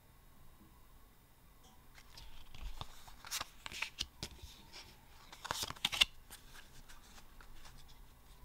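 Yu-Gi-Oh trading cards being handled by hand: a card is slid onto a stack and the next one picked up, giving a run of soft rustles and card flicks from about two to six seconds in.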